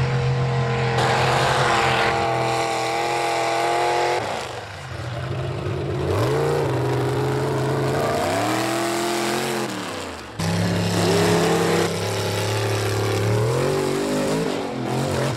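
Mud truck engines revving hard, the pitch climbing and falling with each burst of throttle, one truck after another, with the sound changing abruptly several times.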